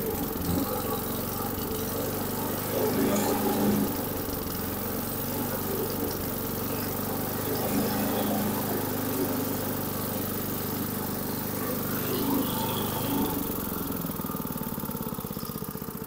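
3 hp Briggs and Stratton single-cylinder engine on a Mighty Mac chipper shredder running steadily after a carburetor cleaning, easing down in level near the end.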